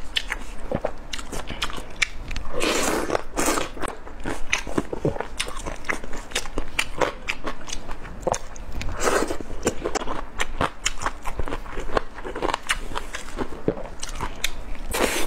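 Close-miked eating of spicy skewered food: a steady run of sharp, wet biting and chewing clicks, with a few louder, longer crunchy bursts about three, nine and twelve seconds in.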